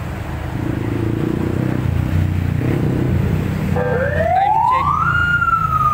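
Steady road-traffic rumble of passing vehicles, then about four seconds in a siren starts, gliding up in a wail and then slowly falling.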